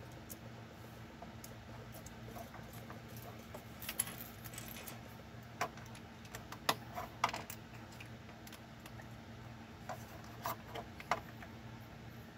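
Small plastic LEGO pieces clicking and clattering as they are handled and pressed together. The sharp clicks come in scattered clusters, over a faint steady low hum.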